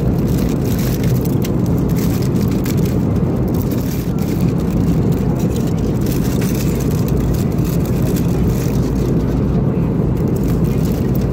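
Steady low drone of an Airbus A320neo cabin in flight, engine and airflow noise, with light crinkling of aluminium foil as the lid is peeled off a meal tray.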